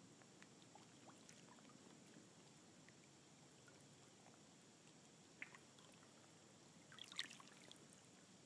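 Near silence, with faint shallow water lapping and trickling among shoreline stones and a short burst of small splashes and drips near the end.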